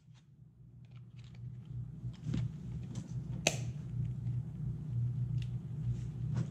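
Scattered plastic clicks and taps as a drone remote controller is handled and its battery cover is fitted back over the AA batteries, the sharpest click about three and a half seconds in, over a steady low hum.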